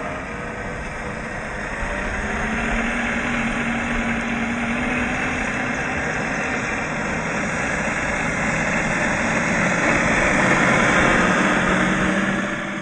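RC crawler's drivetrain running: the whine of its brushed 27-turn electric motor and gears, with the tyres crunching over gravel. It grows louder as the car comes close near the end.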